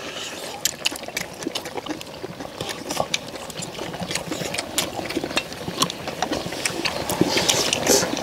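Close-up eating sounds: men chewing and sucking meat off pork back bones, with many sharp clicks of metal tongs and spoons against stainless steel bowls, getting louder near the end.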